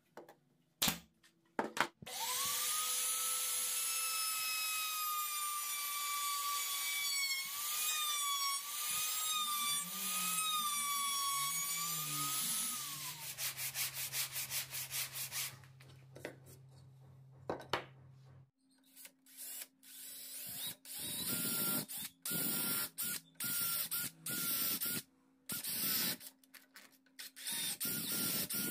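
Woodworking power tool whining up, running about ten seconds with its pitch wavering under load, then winding down. A quieter stretch of hand sanding follows, then a string of short, stop-start bursts, ending with a cordless drill boring into wood.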